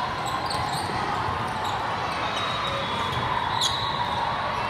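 Busy volleyball tournament hall: a steady din of play and distant voices, with balls bouncing and short, high sneaker squeaks scattered through it.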